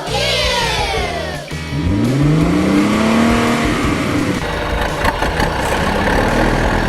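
Falling whistle-like sweeps, then a vehicle engine revving up, rising in pitch about two seconds in, and running on steadily, over background music.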